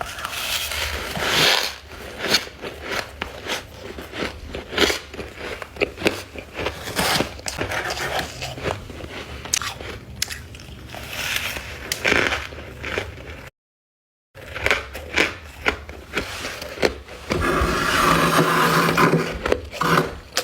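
Close-miked bites and crunching into freezer frost ice, a quick run of sharp crackling crunches. It breaks off into dead silence for under a second a little past the middle, and the crunching grows denser and more continuous near the end.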